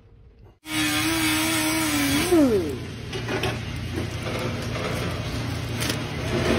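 An engine or motor running steadily, starting abruptly well under a second in, its pitch swooping briefly about two seconds in, while a plastic package is torn open and crinkled by hand.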